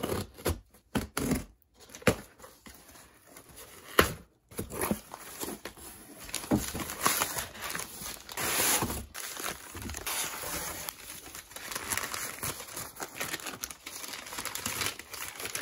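Cardboard shipping box being opened: a blade slitting the packing tape with a few sharp clicks and scrapes, then the crinkling, rustling and tearing of brown kraft packing paper as the wrapped bundle is lifted out and unwrapped.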